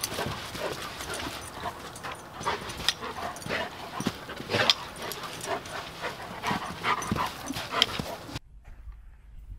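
A Doberman's paws scrabbling and digging in loose sand, quick irregular scuffs and sprays of sand. The sound cuts off abruptly near the end.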